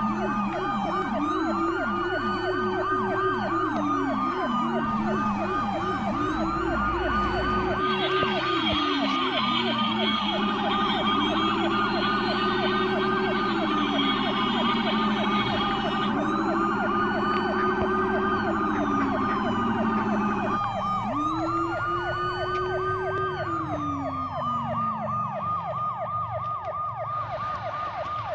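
Several electronic toy siren sounds playing at once: a fast, continuous warble layered with slower rising-and-falling wails, some of which stop about two-thirds of the way through.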